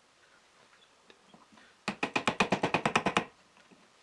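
Wooden mallet tapping a half dowel with a screw in it into a hole in the edge of melamine-faced particle board. After about two seconds of quiet, a quick even run of about fifteen light knocks, roughly ten a second, lasts about a second and a half.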